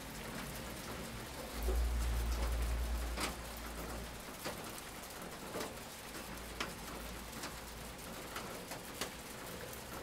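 Steady spring rain falling outside, a soft even patter with scattered small drip ticks. A deep low rumble runs for about two seconds near the start.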